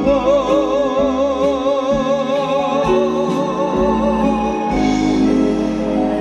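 Live trot song ending: a male singer holds the final note with wide vibrato for about four and a half seconds over the backing track, then the instrumental outro carries on.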